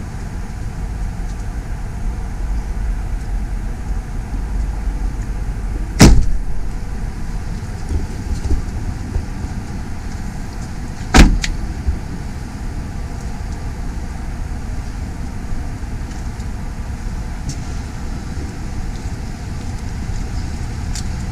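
Two car doors slam shut, about five seconds apart, over a steady low rumble.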